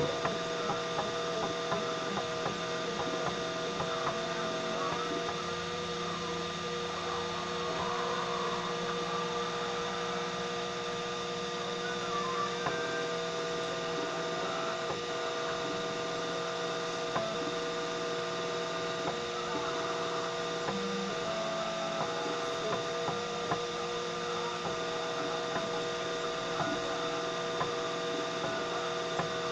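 3D printer running, its stepper motors giving a steady hum in several tones that shift in pitch now and then as the moves change, with faint ticks.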